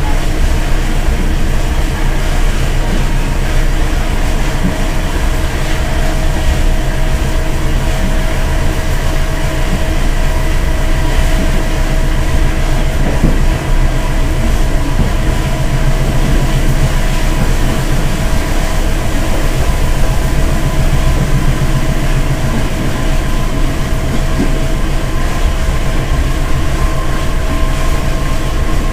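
Passenger train running along the track, heard from aboard: a steady loud rumble of wheels on rails with a steady whine over it.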